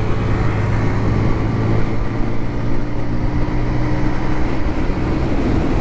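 Motorcycle riding at highway speed: steady engine hum under heavy wind and road rush. The low hum fades out about five seconds in.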